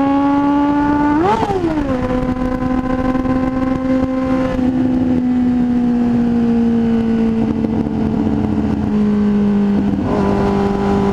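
Motorcycle engine under way, heard from the rider's position with wind noise. About a second in the engine revs briefly up and back down, then it runs steadily and its pitch slowly falls as the bike eases off, dropping a little more near the end.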